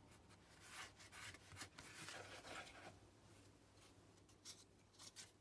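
Faint rustling and rubbing of paper scraps being handled and pressed down by hand, with a few light taps near the end.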